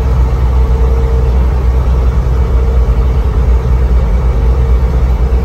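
Inside the cabin of a 1995 Land Rover Discovery with a 200Tdi turbodiesel, cruising at highway speed: a steady low drone of engine and road noise.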